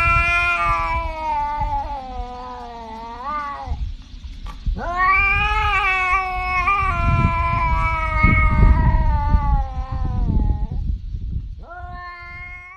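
Tabby cat yowling in long, drawn-out calls. The first lasts nearly four seconds, and after a short break a second one holds for about six seconds. A third begins near the end.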